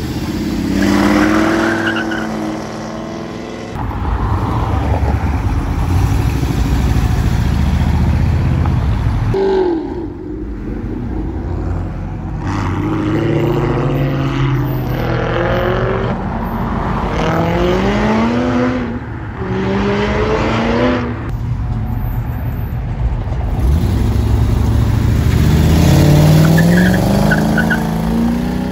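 A string of classic American cars and trucks accelerating away one after another. Their V8 engines climb in pitch again and again, with breaks as they shift gears. The first is a 1969 Hurst/Olds with its 455 V8.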